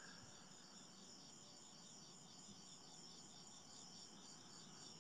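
Faint, steady chorus of crickets chirping in a fast, even pulse.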